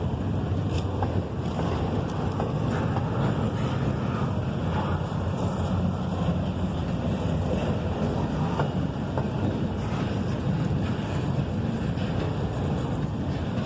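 Freight cars of a CSX train rolling past: a steady low rumble of steel wheels on rail, with scattered faint clicks, and wind buffeting the microphone.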